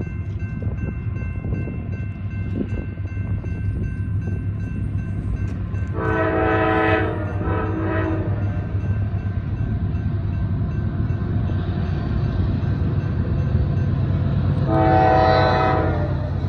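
CSX freight train's diesel locomotives rumbling steadily as they approach, with the air horn sounded three times: a long blast about six seconds in, a short one right after it, and another long blast near the end.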